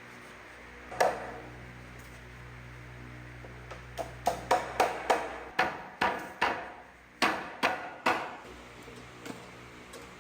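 Hammering: one blow about a second in, then a run of about a dozen blows, irregularly spaced, from about four seconds in to about eight seconds, each with a short ringing decay.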